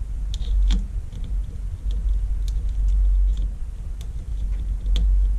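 Small plastic posts on an LCD panel's frame being snipped off with hand cutters: a few scattered sharp clicks over a steady low rumble.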